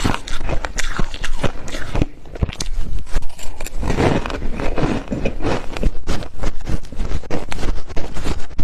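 Close-up crunching of deep-freezer frost being bitten and chewed: a dense, continuous run of sharp crackling crunches.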